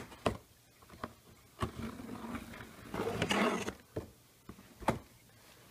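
A cardboard shipping box being handled and its flaps opened: several sharp clicks and taps on the cardboard, and a longer scrape and rustle of cardboard about three seconds in.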